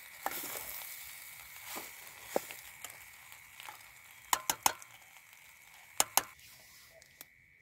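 Pasta sizzling in a steel pot on a portable gas stove as a metal spoon stirs it, clinking and scraping against the pot several times. The sizzle slowly dies down, and the sharpest clinks come in a quick cluster a little past the middle and a pair about six seconds in.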